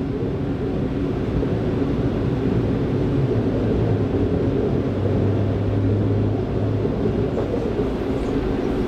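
S-Bahn commuter train running along the line, heard from inside the passenger carriage: a steady rumble of wheels and running gear. A low hum swells in from about three seconds in and fades out near the seven-second mark.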